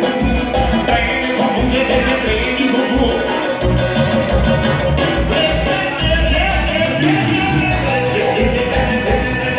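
Upbeat Brazilian dance music with a heavy, steady bass beat and melody instruments, without vocals.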